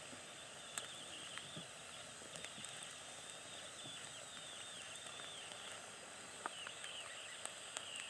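Sausage slices on metal skewers heating over birch embers, giving a faint, high, wavering squeak, with a few soft crackling ticks from the fire. The squeak comes from the sausage itself as it fries, not from water steaming out of the birch log as first thought.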